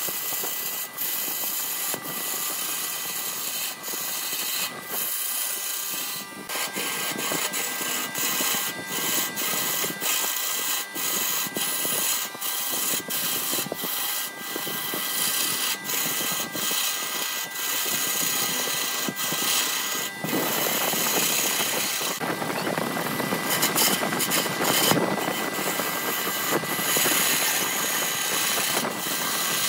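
A turning tool cutting a glued-up bamboo-chopstick blank spinning on a wood lathe: a steady rasping hiss of the cut, peppered with many sharp ticks as the tool meets the bamboo, over a thin steady whine from the lathe. About two-thirds of the way in, the cutting gets louder and denser.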